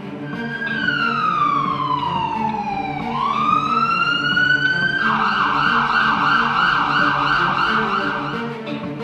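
Electronic emergency-vehicle siren: one slow wail falling and then rising in pitch, switching to a fast warble of about three to four cycles a second that stops shortly before the end. Background music plays underneath.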